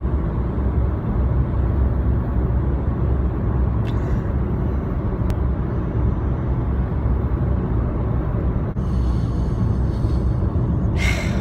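Road and engine noise inside a moving car's cabin: a steady low rumble, with a short rustle near the end.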